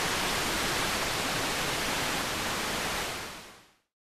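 Steady static hiss, even across all pitches with no tones or clicks, fading out about three seconds in to silence.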